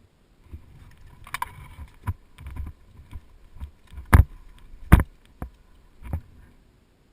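A string of sharp, irregularly spaced knocks and clicks over a low rustling rumble, the two loudest a little after four seconds and at five seconds.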